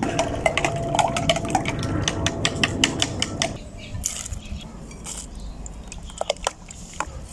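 A utensil clinking rapidly against a bowl while raw ostrich egg is stirred with salt, about six strikes a second with a faint ringing note from the bowl. After about three and a half seconds it slows to a few scattered taps.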